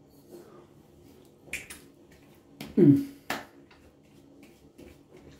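Palms slapping alcohol-based bay rum aftershave splash onto a freshly shaved face: several sharp slaps, partly in quick pairs. With the loudest slap comes a brief falling vocal sound.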